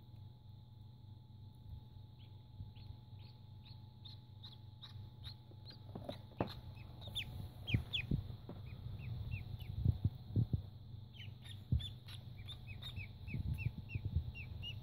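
Indian Runner ducklings peeping: runs of short, high, falling peeps, several a second, with a pause near the middle. Water splashing in a plastic tub as they paddle, loudest a little under halfway through.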